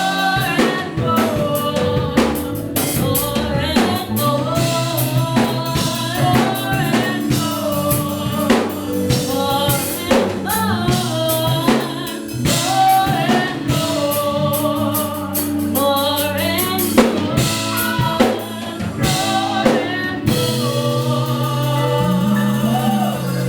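Gospel praise-and-worship music: singing over a band with drum kit and held keyboard chords.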